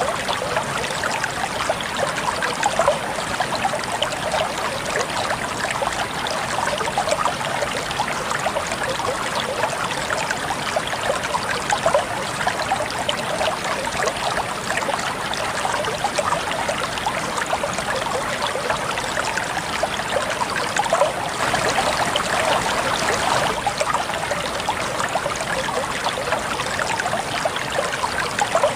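Shallow stream of water flowing and splashing steadily, a continuous burbling rush with no break.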